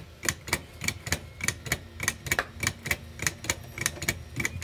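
A 3D-printed PLA watch escapement ticking steadily: the plastic escape wheel's teeth click against the pallets in a regular run of sharp ticks, about three a second.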